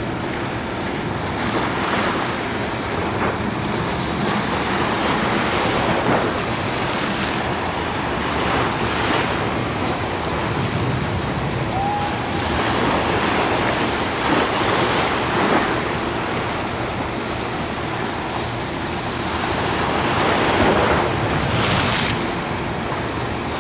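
Small surf breaking and washing over a shallow reef at the shoreline, swelling up every few seconds as each wave comes in, with wind buffeting the microphone.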